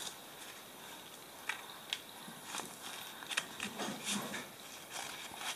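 Green corn husks crackling and tearing as a small child peels them off an ear of corn by hand, in scattered short, sharp crackles.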